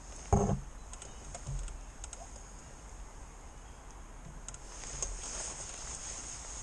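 Fishing tackle handled on a seatbox while a fish is played and the landing-net pole is picked up: scattered light clicks and knocks, with one sharp knock about a third of a second in.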